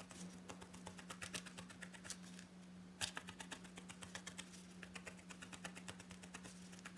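Felting needle stabbing repeatedly through wool into a foam pad: rapid soft clicks, several a second, pausing briefly about two and a half seconds in. A steady low hum runs underneath.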